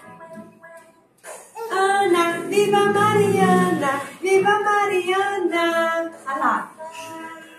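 A children's song playing from the computer: a woman's voice sings long held notes over backing music, starting about a second in and dropping away near the end.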